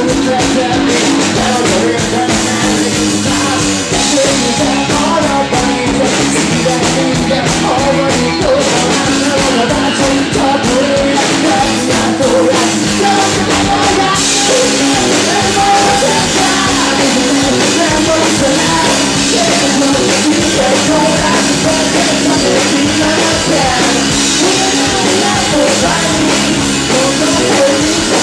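Rock band playing live: distorted electric guitar and drum kit with a singer, loud and dense. The cymbals get louder about halfway through.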